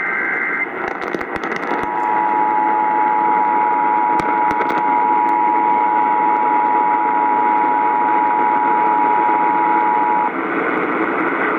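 Emergency Alert System broadcast received over AM radio: a brief end of the digital SAME header data squawk, then the two-tone EAS attention signal (853 and 960 Hz) held steady for about eight and a half seconds, cutting off sharply. Constant AM static hiss and scattered crackles run underneath.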